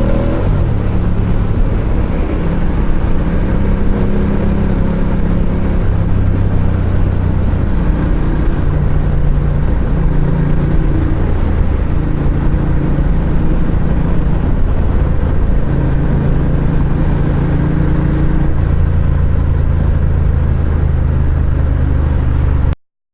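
Ducati Diavel's L-twin engine running while riding in traffic, its pitch stepping up and down every few seconds with throttle and gear changes, over a steady rush of wind and road noise. The sound cuts off suddenly near the end.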